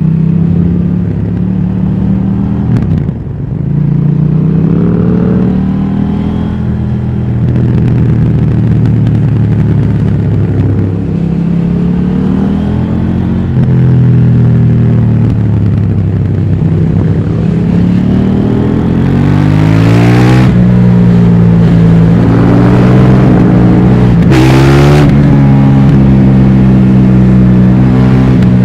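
KTM 790 Duke's parallel-twin engine through its stock exhaust, accelerating through the gears: its note climbs in pitch, then drops back at each upshift. Brief rushes of hiss come about two-thirds of the way in.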